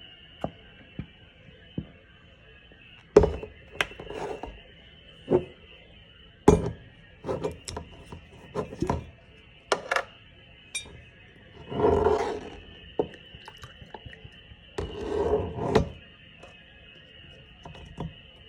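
Glassware and kitchen utensils clinking and knocking while a honey, whiskey and lemon shot is mixed: irregular sharp clinks and thuds, with two longer, noisier sounds a little past the middle. Faint steady background music.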